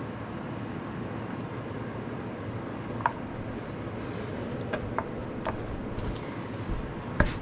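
Light metal clicks and knocks as an engine cover is positioned and seated onto the dowels of an Arctic Cat 300 ATV's cylinder head, a few single taps with the loudest near the end, over a steady background rumble.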